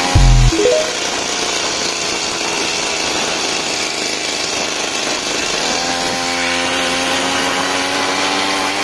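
Mitsubishi T140 brush-cutter engine mounted on a bicycle, running under throttle while the bike is ridden, with a loud low thump just after the start. About six seconds in the engine note rises and then holds steady.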